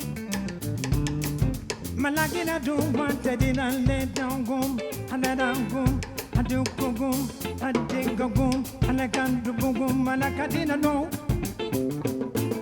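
Live improvised band music on bass, drum kit and guitar, with a wavering sung melody from about two seconds in until near the end.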